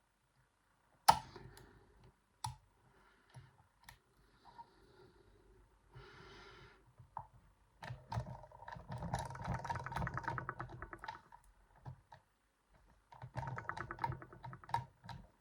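Small metal clicks and rattling from a homemade pick working the sliders inside a Yuema-style slider lock. One sharp click comes about a second in, then scattered ticks, then two stretches of fast clicking and scraping, in the middle and near the end.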